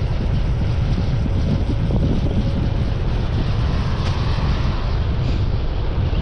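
Wind buffeting the microphone in a steady low rumble.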